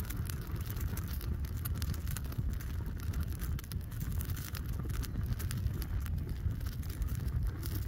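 Open fire burning around a lawn mower air filter with a pleated element: a steady low rush of flames with frequent small crackles and pops.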